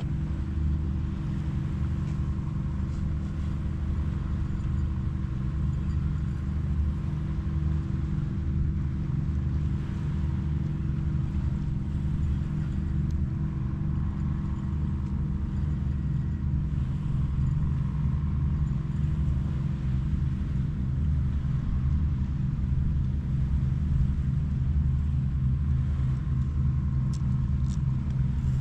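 A steady low rumble with a constant droning hum, unchanged in level throughout.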